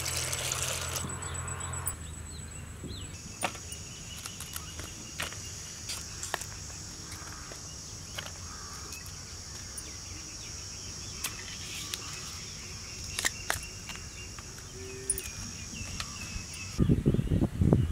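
Water poured from a vessel onto chana dal in a clay pot for about the first two seconds. Then a steady high insect drone with scattered small clicks and snaps as florets are picked from a banana blossom, and a louder, rougher noise near the end.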